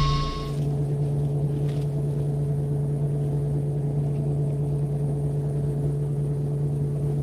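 Steady low hum of a fishing boat's engine, with a faint steady higher tone riding over it. A high motor whine, an electric fishing reel winding line, cuts off about half a second in.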